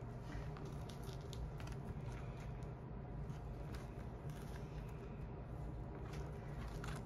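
Faint scattered clicks and scrapes of a gopher tortoise being handled, hands and shell moving against each other and against the exam mat, over a steady low hum.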